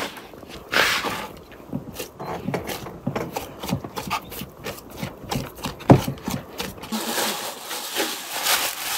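Dough being kneaded by hand in a plastic basin: irregular soft slaps, squishes and rubs, with one sharp knock against the basin about six seconds in. Near the end a plastic bag rustles as it is drawn over the basin.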